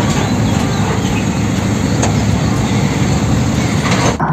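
Toy Pertamina tanker truck being rolled along the ground, its wheels making a steady rumbling scrape.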